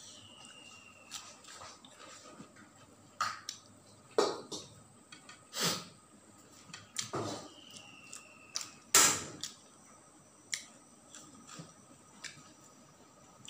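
Close-up eating sounds from a person eating rice and grilled fish by hand: scattered short mouth sounds of chewing and lip smacking, the loudest about six and nine seconds in. A faint thin whistle, falling slightly in pitch, comes at the start and again around eight seconds.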